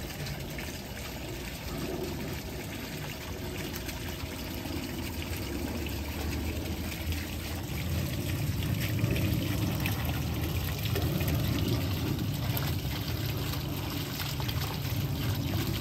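Water running and trickling steadily, growing a little louder and fuller about halfway through.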